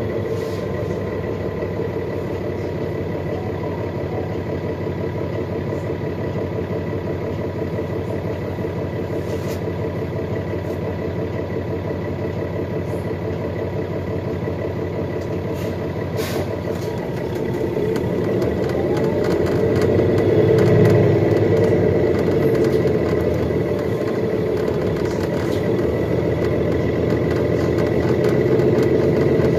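2021 Nova Bus LFS hybrid city bus idling at a stop with a thin steady whine over the engine; about 18 seconds in it pulls away, a whine rising in pitch and the drive growing louder as it accelerates, then settling into steady running.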